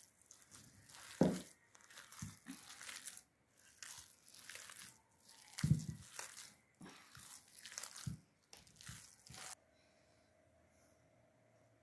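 A hand kneading and squeezing a soft, moist ground lentil-and-mince kabab mixture in a glass bowl, giving irregular squelching and rustling with a few louder soft thumps. It cuts off abruptly about two seconds before the end, leaving only a faint hum.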